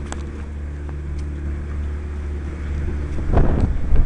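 A steady low machine hum, with rough rumbling noise on the microphone starting a little over three seconds in.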